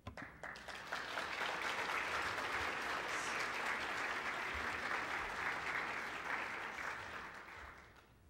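Audience applauding, building up over the first second, holding steady, then dying away near the end.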